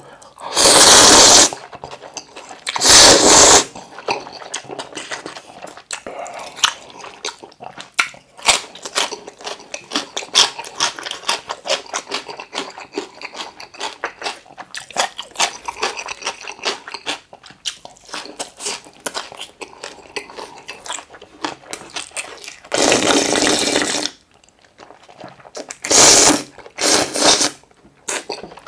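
Loud slurps of curry ramen: two near the start and three more near the end, each lasting about a second. Between them is close-up chewing with many small wet clicks.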